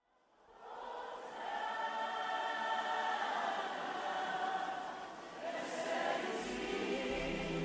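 Slow instrumental worship music opening with sustained, wordless choir-like voices that fade in over the first second and hold long layered chords. A low bass note joins about six seconds in.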